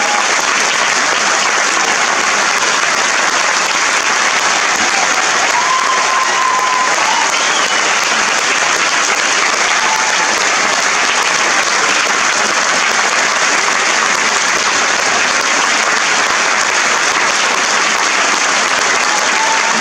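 Theatre audience applauding: dense, steady clapping that keeps up at an even level without a break.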